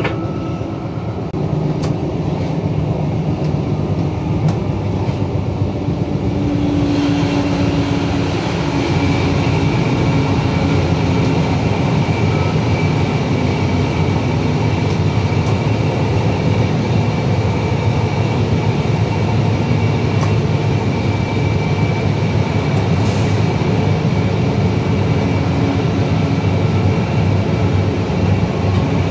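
Train running along the line, heard from the driver's cab: a steady rumble of running gear and track noise with a low hum. It grows a little louder and brighter about seven seconds in.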